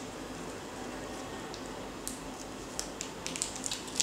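Faint clicks and ticks of a laptop LCD panel being handled and pried up from its double-sided tape, coming more often in the second half, over a steady low hiss.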